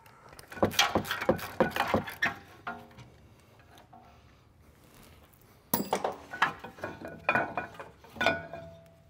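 Socket ratchet clicking in quick strokes on the 16 mm mounting bolts of a BMW F30's rear Brembo brake caliper. After a pause come more clicks and metal clinks, with a short metallic ring near the end.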